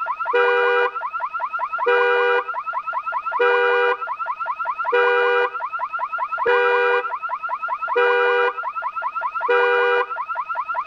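Car burglar alarm sounding: a steady blare about half a second long alternates with a run of quick rising chirps, the cycle repeating about every second and a half.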